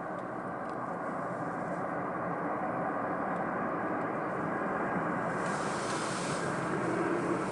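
Airbus A319 jet engines on a landing approach, a steady rushing noise growing slowly louder as the airliner comes closer. A higher hiss joins about five seconds in.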